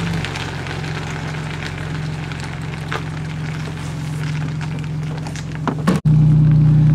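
Steady low drone of a truck moving slowly while towing, with scattered crackling and clicking. It cuts out for an instant about six seconds in and comes back louder.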